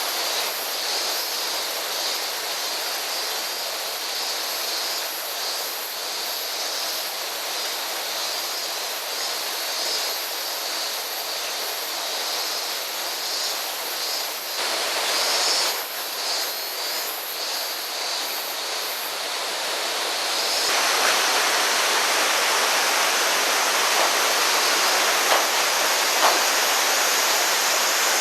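Steady rush of flowing water in a mountain gorge. About three quarters of the way through it becomes louder and brighter.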